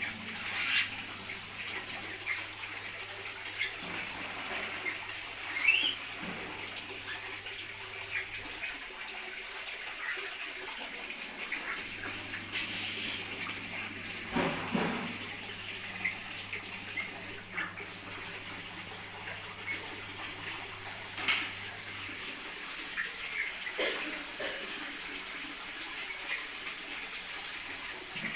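Birds in an aviary chirping: many short, high calls scattered throughout, over a steady rush of running water. A low hum stops about a third of the way in, comes back, and stops again near the end.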